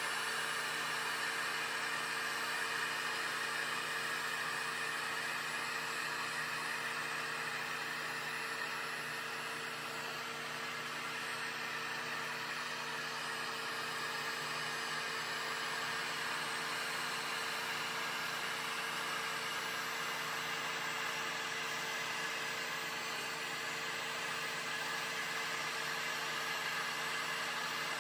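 Corded Wagner heat gun running steadily, its fan blowing a constant rush of hot air over a faint motor hum, as it warms a vinyl floor plank for bending.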